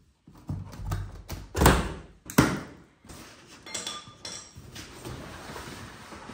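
Heavy shipping box holding an electric dirt bike knocking and thumping as it is lifted and shifted between vehicles. Two loud thumps come in the first half, followed by fainter scraping and rustling.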